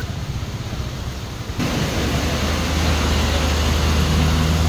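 Steady rushing noise of floodwater flowing over the ground. About a second and a half in it changes abruptly to a louder noise with a deep steady rumble beneath it.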